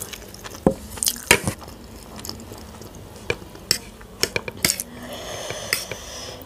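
Metal fork clinking and scraping against a ceramic plate while stirring and lifting masala Maggi noodles: a string of sharp separate clicks, bunched together about four seconds in.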